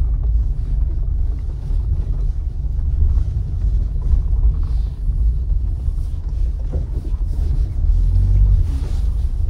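Steady low rumble inside the cabin of a first-generation Ford Figo petrol hatchback as it drives slowly along an unpaved dirt track. Engine and tyre noise from the rough surface, with a few faint knocks.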